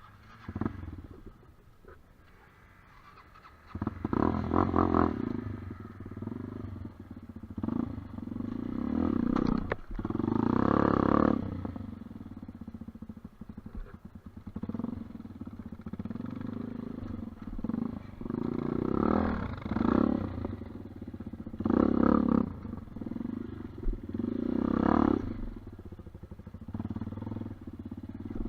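Off-road dirt bike engine running and revving in repeated surges, with lower running between the throttle bursts.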